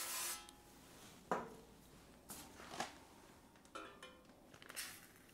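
Quiet cooking-gear handling: a short hiss at the very start, then a few scattered light clicks and knocks around a camp-stove frying pan and a plastic zip bag of frozen seafood.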